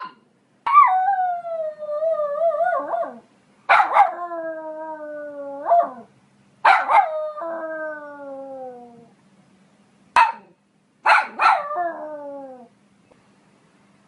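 Poodle howling: three long drawn-out howls, each starting sharply and sliding down in pitch. Then a single short bark, and two quick yips that run into a shorter falling howl.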